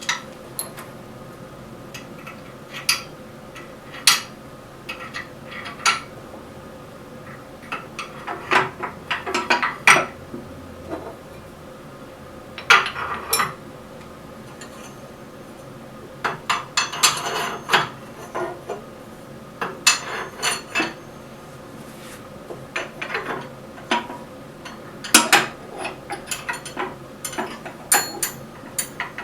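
Metal lathe accessories and tools clinking and knocking as they are fitted into a metal tool holder, in scattered, irregular taps with a few short clattering runs.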